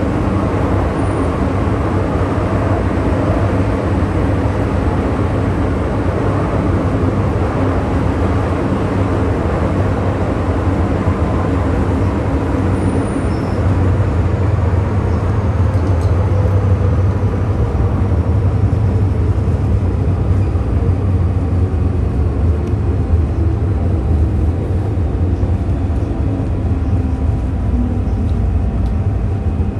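MTR electric multiple-unit metro train running, heard from inside the carriage: a loud steady rumble of wheels on track, with the traction motors' whine falling in pitch in the second half as the train slows.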